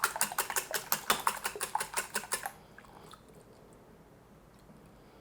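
Eggs being beaten in a bowl, the utensil clicking against the bowl about six times a second; the beating stops about two and a half seconds in.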